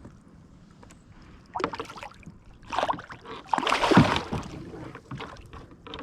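Three bursts of splashing and rustling at a kayak as a freshly landed smallmouth bass is handled. The last burst, about four seconds in, is the loudest.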